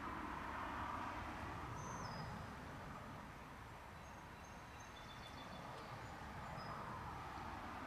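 Faint steady background noise that swells and fades slowly, with a few brief, high chirps from birds in the distance, about two seconds in and again past the middle.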